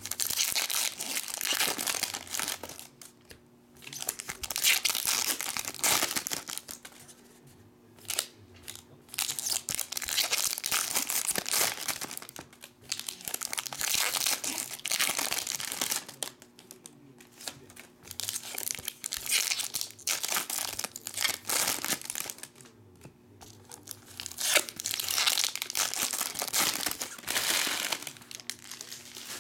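Foil wrappers of Topps Star Wars Galactic Files trading-card packs being torn open and crumpled by hand. The crinkling comes in repeated bursts of a few seconds each, with short pauses between.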